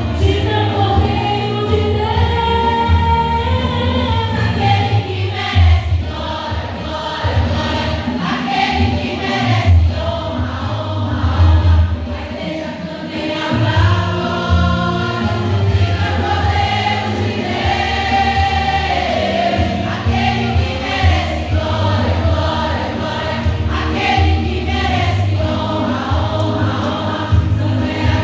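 Choir singing a gospel hymn with instrumental accompaniment and a strong steady bass.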